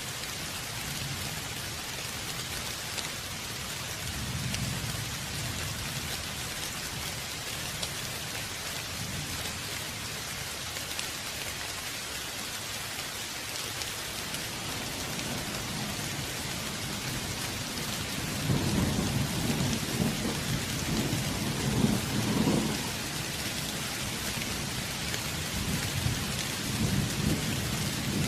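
Steady heavy rain hissing, with thunder rumbling low underneath: a soft roll about four seconds in, a louder, longer roll from about two-thirds of the way through, and a fainter one near the end.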